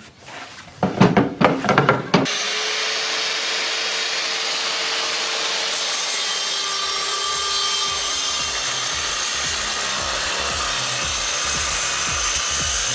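Metabo KGS 216M 1500-watt compound miter saw cutting through oak. The sound starts suddenly about two seconds in and holds a steady level, with a faint tone slowly sinking.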